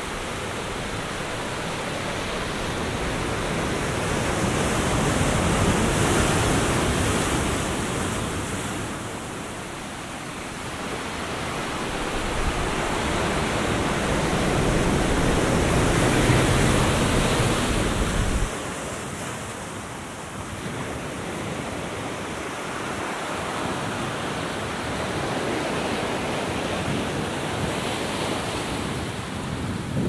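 Atlantic surf breaking and washing up a sandy beach, swelling to a peak twice, about 6 and 16 seconds in. A low wind rumble on the microphone drops away suddenly about two-thirds of the way through.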